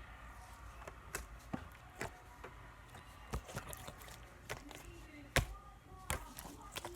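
Slime being squeezed and worked by hand, giving irregular sharp clicks and pops, the loudest about five seconds in.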